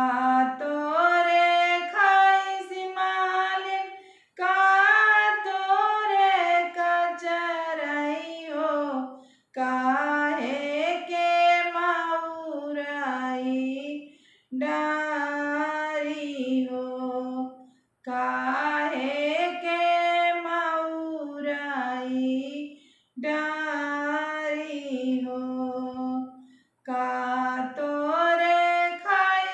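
A woman singing a Bagheli wedding folk song (vivah geet for a son's wedding) alone, with no accompaniment, in sung phrases of about four to five seconds broken by short pauses for breath.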